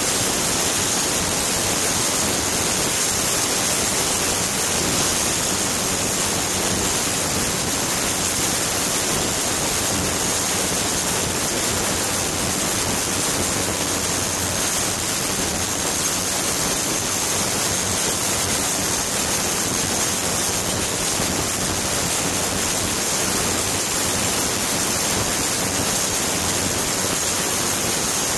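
Ultrasonic cleaning bath running: a steady hiss of cavitating, streaming water with a thin high-pitched whine on top.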